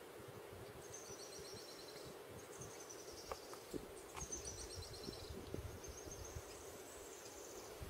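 Faint high, fast trills, repeated every second or two, each phrase about a second long and falling slightly in pitch. A steady low hum and a low rumble lie underneath, with a couple of soft ticks in the middle.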